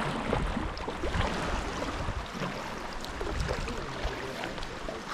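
Waterfall pouring into a rocky sea pool: a steady rush of falling and splashing water, with irregular low knocks.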